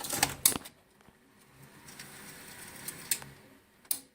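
Sharp plastic-and-metal clicks and clunks as a Betamax cassette is pushed into the cassette slot of a Sony UVW-1700G Betacam SP deck, followed by a quieter whir of its loading mechanism with two single clicks near the end.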